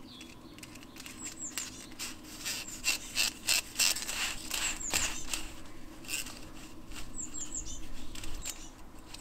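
Thin pulling wire rustling and scraping in irregular strokes as it is worked by hand into flexible underground wiring pipe. A small bird gives quick, high, downward chirps in short groups of about three, a few times.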